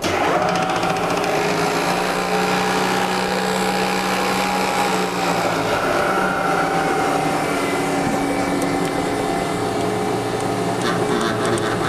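Vertical milling machine's spindle motor switched on and running steadily with a drill bit in the spindle, a hum with a few steady tones. Near the end a rapid patter of clicks joins in.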